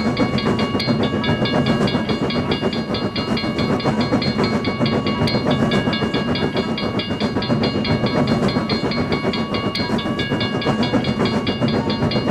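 Animated train sound effects: a train running with a steady rumble and a fast, even clatter.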